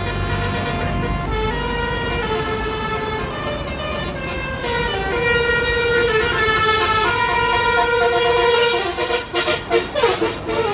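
Bus 'telolet' Basuri musical air horn with roof-mounted trumpets playing a tune of held notes that change pitch every half second or so, over a low rumble. Near the end it breaks into rapid stuttering notes with sliding pitch.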